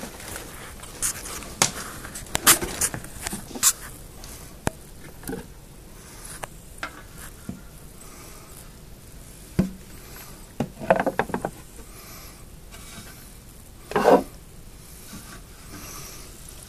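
Handling noise: scattered taps and clicks with short rubbing and scraping sounds. There is a cluster in the first few seconds, a run of rubs about eleven seconds in, and one loud brief rub about fourteen seconds in.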